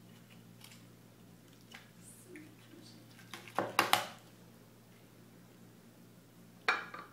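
Chef's knife carving through a roast chicken's leg joint on a wooden cutting board: faint scrapes and clicks, then a quick cluster of sharp knocks of the blade on the board about four seconds in, and one more sharp knock near the end.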